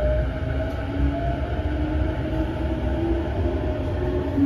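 Cabin running sound of a JR East E233-5000 series electric train gathering speed: the traction motors' whine rises slowly in pitch in a few overlapping tones over a steady low rumble from the wheels and car body.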